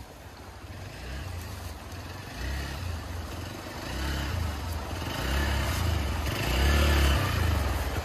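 Hero XPulse 200 4V's single-cylinder engine running at low revs in uneven pulses of throttle as the bike picks its way down a rocky bank into a stream. It grows steadily louder as it comes closer.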